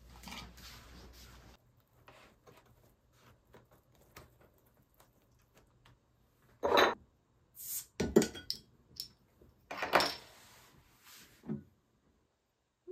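Tableware and a cardboard pizza box being handled on a table: a handful of short clatters and knocks in the second half, with quiet rustling between.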